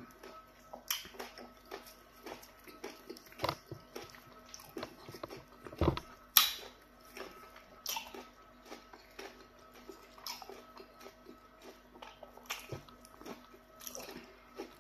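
Close-miked eating of pounded yam fufu with okra soup by hand: irregular wet mouth smacks, clicks and squishes of chewing and of fingers working the soft dough, with a few louder smacks midway.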